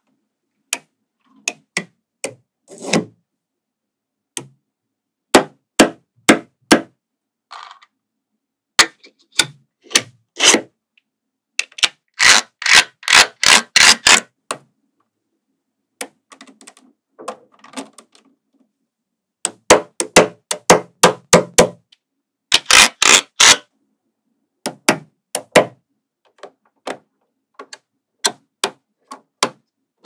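Small magnetic balls clicking and snapping together as rows and blocks of them are set onto a magnet-ball model: single sharp clicks with silence between, and quick runs of many clicks about twelve seconds in and again around twenty-two seconds.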